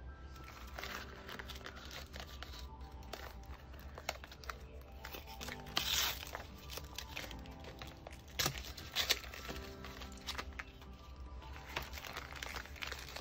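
Crinkling and rustling of a kraft paper sleeve and a beeswax-soaked linen wrap as a paint set is pulled out of the sleeve and unwrapped by hand, with the sharpest crackles about six seconds in and again near nine seconds. Soft background music plays underneath.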